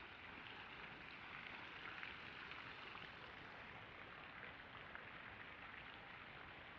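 Faint, steady patter of falling water drops: an even hiss with small scattered taps.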